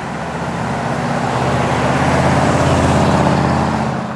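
A 1969 AMC Ambassador SST with its 343 cubic-inch V8 driving toward and past, engine and tyre noise growing louder to a peak about three seconds in, then falling away near the end.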